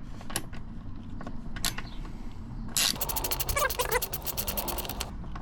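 Socket ratchet clicking rapidly for about two seconds as a 12 mm bolt on the motorcycle's rear mudguard mount is undone, after a few separate knocks of tools on metal.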